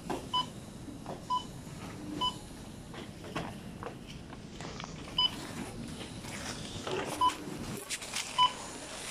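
Supermarket checkout barcode scanner beeping as items are scanned: about six short beeps at irregular intervals, over the clatter of a busy checkout.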